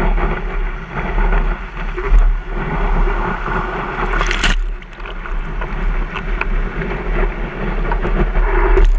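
Wind buffeting the microphone of a surfboard-mounted action camera over the rush of whitewater as the board rides a breaking wave, with a steady low rumble. A brief sharp burst of splashing spray about halfway through.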